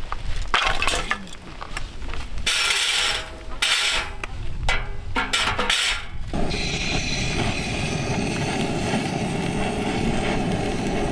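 Metal parts of a new Moble folding fire pit clinking and scraping as it is fitted together, in irregular clatters. About six seconds in, a steady rushing roar starts suddenly and carries on.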